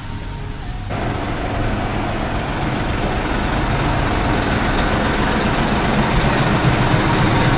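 Large coach bus idling close by: a steady low engine rumble with a broad hiss. It comes in abruptly about a second in and grows louder.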